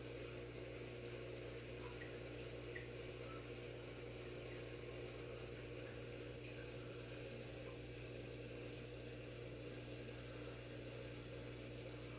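Aquarium filter running: steady water trickling and flowing, with scattered small blips like bubbles or drips, over a continuous low motor hum.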